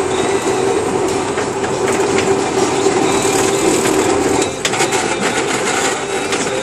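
Semi-truck's diesel engine and cab noise heard from inside the cab while the truck rolls slowly: a loud, steady drone that eases off about four and a half seconds in, followed by light rattles and clicks.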